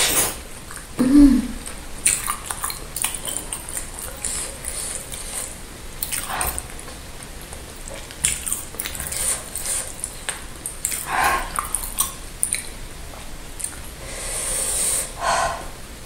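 Close-miked eating sounds from a giant bakso iga, a beef meatball on a rib bone: wet bites, chewing and lip smacks, with light knocks against the plate. A few louder mouthfuls come about six, eleven and fifteen seconds in.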